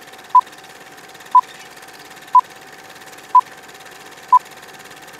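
Film-leader countdown sound effect: a short, even beep once a second, five times, over a steady film hiss with a faint hum beneath.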